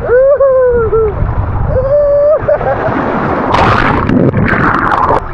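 Riders on a water slide giving two long held whoops, then a loud rush of splashing water from about three and a half seconds in as they reach the bottom.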